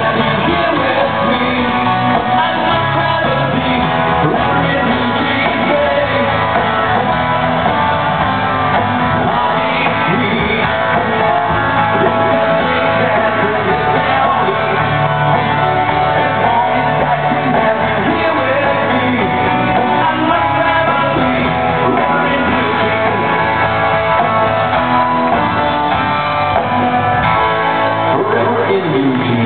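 Live band playing a song, with a lead singer over the instruments.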